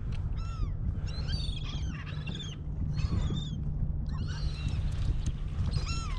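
A flock of gulls in a feeding frenzy over baitfish, calling over and over in bunches of overlapping short falling cries. A steady low rumble runs underneath.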